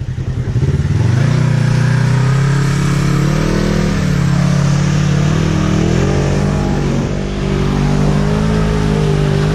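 Side-by-side UTV engine running under load on a muddy trail, its revs rising and falling as the throttle changes.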